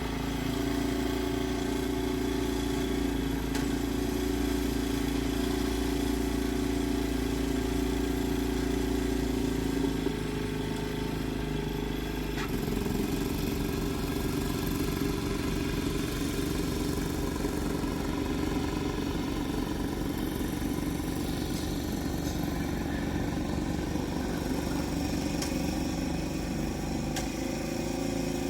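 An engine running steadily, its note changing about ten seconds in and again a couple of seconds later.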